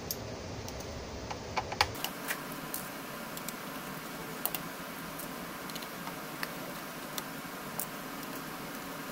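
Scattered light clicks and taps of a precision screwdriver and small screws being handled on the lid of an Intel NUC mini PC, over a steady hiss.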